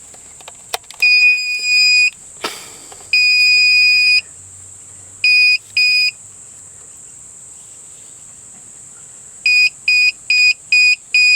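MyKey Premium remote start module beeping as it powers up after its power plug is connected: two long high beeps, then two short ones, then a quick run of short beeps near the end. A brief rustle sits between the first two beeps.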